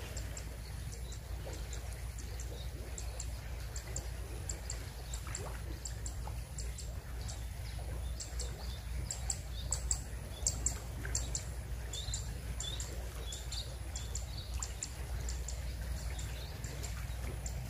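Small birds chirping, many short high chirps in an irregular patter, busiest in the middle, over a steady low outdoor rumble of moving water and wind.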